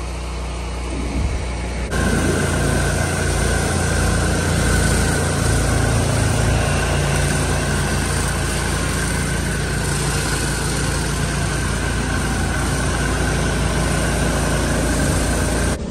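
Pressure washer with a rotating flat surface cleaner spraying over a concrete sidewalk: a steady rush of water spray over a low hum. It gets louder about two seconds in, after a quieter stretch of rinse spray, and cuts off near the end.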